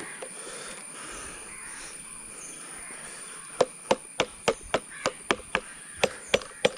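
Crows cawing, then from about three and a half seconds in, a blade chopping rapidly and evenly into the wood of a jackfruit tree, about three strokes a second, cutting the felling notch.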